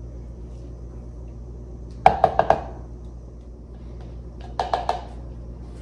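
A spatula knocking against a plastic Nutribullet blender cup while scraping thick pesto out of it: two quick runs of four or five light knocks, about two seconds in and again near the end.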